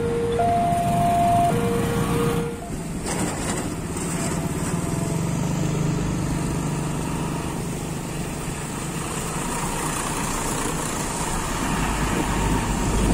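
A level-crossing warning signal sounds as two alternating tones for the first couple of seconds, over traffic noise. After that, road traffic with a bus engine running as a coach drives up and passes close by, its engine growing louder near the end.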